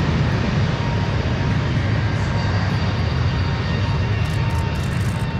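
Embraer E195-E2 airliner's Pratt & Whitney PW1900G geared turbofan engines at takeoff thrust during the takeoff roll: a loud, steady rumble with a faint high whine over it.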